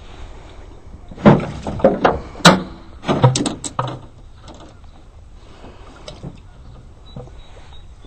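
A short run of knocks, thumps and clatter from netted fish and gear being handled in a boat, loudest between about one and four seconds in, then quiet.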